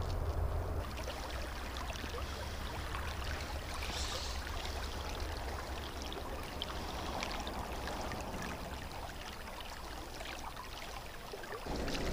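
Steady rushing of shallow river water running over rocks, with a low rumble underneath.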